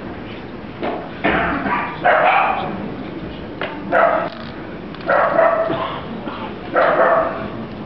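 Dachshund puppy barking, about six barks at uneven gaps.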